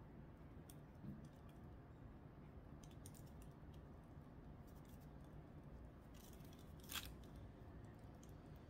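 Near silence with faint scattered clicks of a succulent's stems and soil-clad roots being handled, and a brief louder crunch about seven seconds in.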